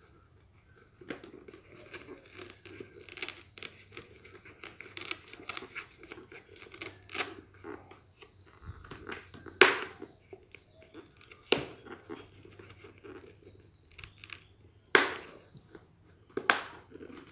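Foam and fabric of a full-face motorcycle helmet's cheek pad rustling and rubbing against the shell as it is pushed into place. A few sharp clicks stand out, the loudest about ten and fifteen seconds in, as the pad's fasteners snap in.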